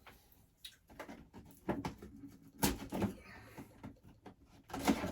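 Handling a cardboard toy box and scissors to cut packing tape: scattered clicks, rustles and knocks, the loudest a sharp knock about halfway through.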